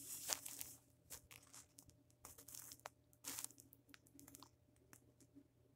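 Faint handling noise of fingers turning a small plastic Lego mailbox: a few light plastic clicks and brief rustles.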